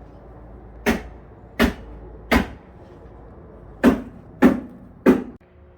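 Six sharp knocks of something hard being struck, in two sets of three, each with a short ring-out. The sound cuts off abruptly near the end.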